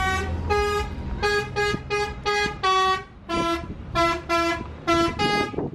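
Bus 'telolet' multi-tone musical horn playing a quick tune of about a dozen short notes at changing pitches. A low rumble underneath dies away in the first second.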